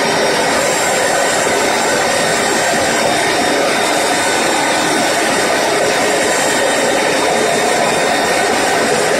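Electric concrete core cutting machine running steadily: a loud, even motor-and-cutting noise with a faint high whine.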